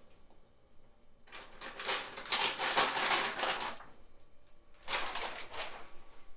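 Kitchen handling noise: two bursts of rustling and scraping, the first starting about a second in and lasting a couple of seconds, the second shorter near the end.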